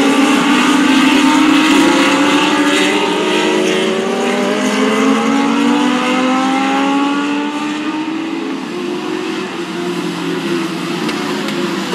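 Several Legends race cars running in a pack, their Yamaha motorcycle four-cylinder engines revving high with overlapping notes rising together as they accelerate. The sound eases a little about eight seconds in.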